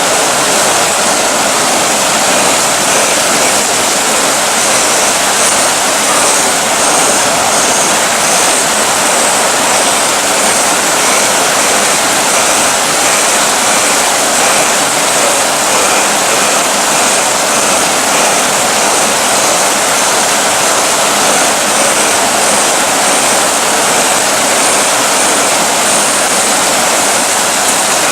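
Steady, loud rain noise, an even hiss like rushing water that does not let up.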